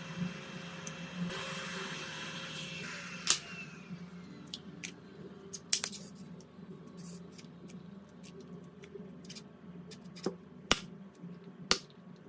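A small electric tool whirs steadily, then cuts off about three seconds in with a short falling whine. Scattered sharp clicks and taps of small hand tools on a phone's parts follow.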